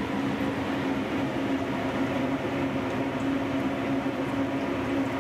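Hot oil in a commercial deep fryer sizzling steadily as a battered gummy bear fries, over a steady machine hum.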